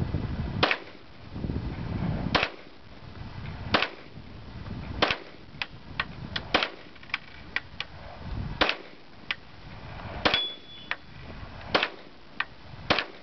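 Pistol shots fired one at a time: about eight loud shots spaced a second or two apart, with fainter sharp cracks in between. A short ringing tone follows the shot about ten seconds in.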